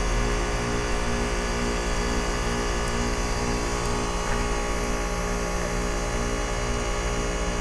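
2003 Carrier TECH2000 4-ton heat pump outdoor unit running steadily in its defrost cycle, a constant machine hum from the compressor.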